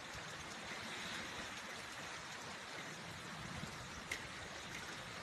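Steady rain falling, an even hiss with a few scattered drip ticks, the sharpest about four seconds in.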